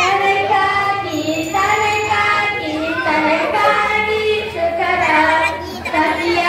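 A group of schoolchildren singing together in unison, holding long notes, with a brief pause near the end.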